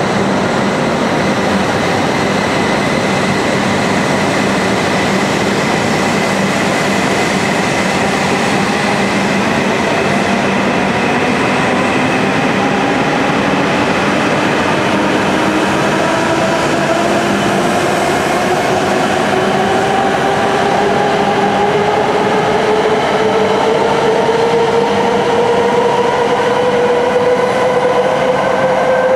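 Hokuriku Shinkansen E7/W7-series train pulling out of the station, its traction motors whining in several tones that rise slowly and steadily in pitch as it gathers speed. The whine sits over a steady rolling rumble of the cars passing close by.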